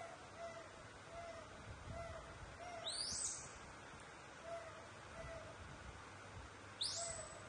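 Animal calls: a run of short hoot-like notes, one every half second to a second, and two louder high squeals that rise sharply in pitch, about three seconds in and near the end.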